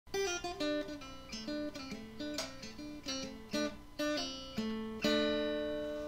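Intro music: a solo acoustic guitar picking a short tune of plucked notes, ending on a chord about five seconds in that rings out and fades.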